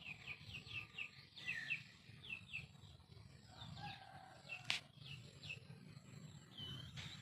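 Birds chirping: rapid runs of short, falling, high chirps, with one sharp click near the middle.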